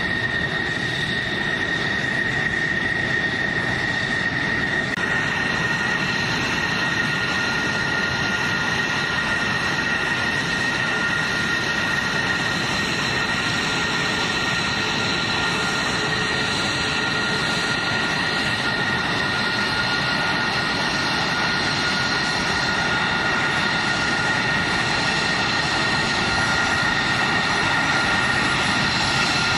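Jet engine running steadily: a constant roar with a high whine on top, and a second whine tone coming in about five seconds in.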